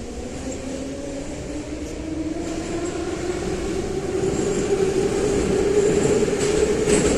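Metro car of the 81-717/714 'numbered' type, its traction motors whining as the train picks up speed. The whine rises steadily in pitch and grows louder, with a few wheel clicks over rail joints near the end.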